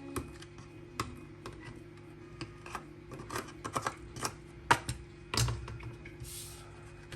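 Parts of an opened laptop battery pack being handled: scattered small clicks and taps, busiest in the middle, with a short scrape near the end.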